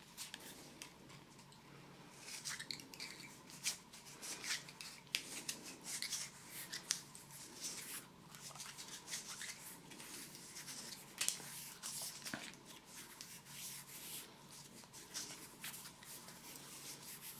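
PTFE thread-seal tape being pulled off its roll and wound around the threads of a chrome radiator tail: faint, irregular crackling and rubbing that starts about two seconds in.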